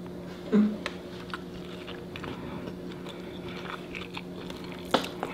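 Close-miked chewing of crunchy taco and tortilla-chip food: crunches and wet mouth clicks over a steady low hum, with one brief louder sound about half a second in.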